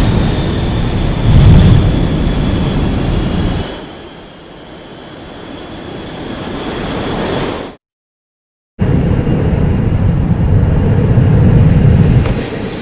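Sound-effect rumble and rushing roar of a small rocket ship's engine in flight, with a faint falling whine in the first few seconds. It drops away at about 4 s and swells again, cuts to silence for about a second a little past the middle, then the loud rumble returns.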